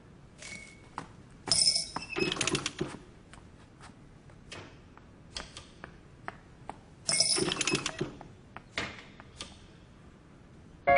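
Scattered light clicks and clinks of small hard objects, with two short louder bursts of clatter, about a second and a half in and again about seven seconds in.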